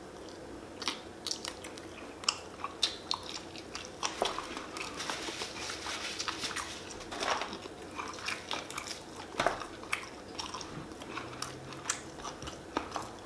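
A person biting and chewing crispy fried chicken wings close to the microphone, with many sharp crunches as the coating breaks and the meat is pulled off the bones.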